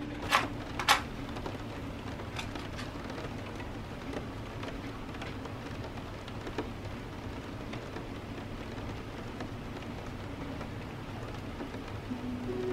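Steady rain hiss, with two sharp scratchy strikes about half a second apart near the start, as a match is struck.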